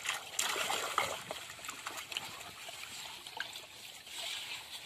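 Live fish thrashing in a plastic drum of water, with irregular splashes and trickling, busiest in the first second or so and again near the end.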